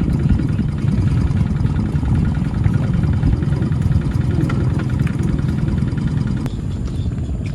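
A steady low motor rumble with a fine, even ticking.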